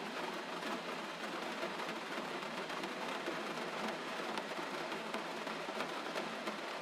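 Steady gentle rain falling, an even hiss with scattered sharper drop ticks.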